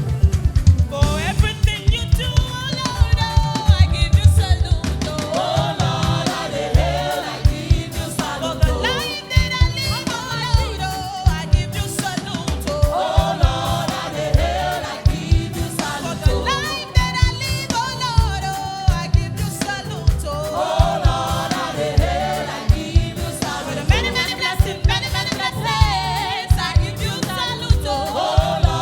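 Choir singing a gospel song over a live band with drum kit and bass, with a steady beat.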